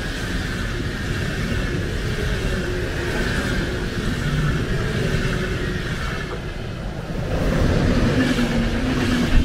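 Deutsche Bahn Intercity train passing at speed: a steady rumble and hiss of the coaches' wheels on the rails, growing louder about seven seconds in as the electric locomotive goes by.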